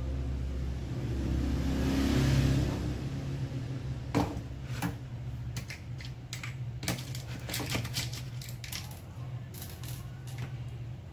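Irregular small clicks and taps of hands and a tool working on parts in an open laptop chassis, fitting an NVMe SSD. A brief rustle comes about two seconds in, and a steady low hum sits underneath.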